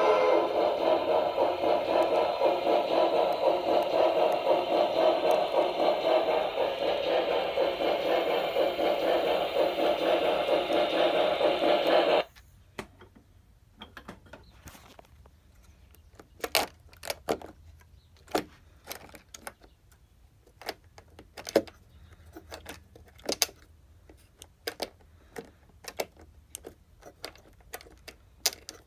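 Steam locomotive sounds played through the small onboard speaker of an HO scale Broadway Limited Paragon 2 Pennsylvania Railroad 2-10-0 Decapod model, running steadily and cutting off abruptly about twelve seconds in. Faint, irregular clicks and taps follow.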